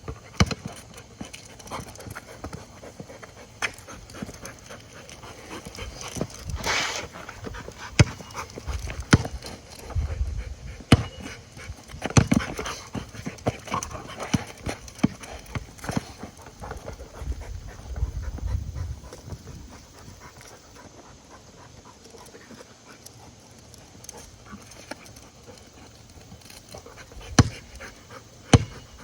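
Dog panting steadily, with scattered sharp clicks and knocks throughout. A few low thumps come around a third of the way in and past the middle, and a loud knock comes near the end.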